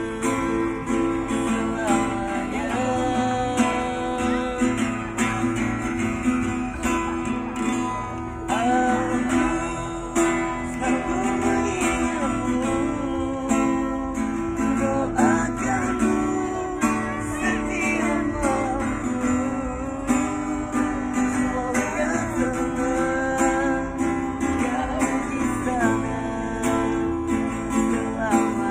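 A street busker strumming an acoustic guitar and singing a song, the guitar chords steady under a wavering sung melody.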